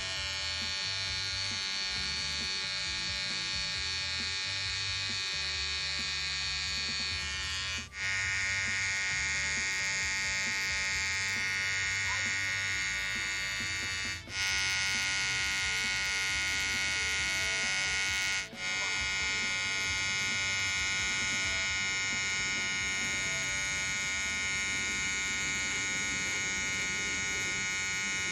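Cordless electric hair trimmer buzzing steadily as it cuts hair at the neckline. It cuts out briefly three times, and its tone shifts slightly after the first break.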